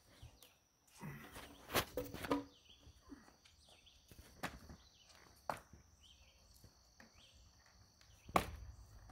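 Several sharp wooden knocks and scuffs as a heavy LVL header is handled and hoisted onto a framed 2x4 wall, with footsteps on concrete between; the loudest knock comes near the end as the header is set in place. Insects trill steadily behind.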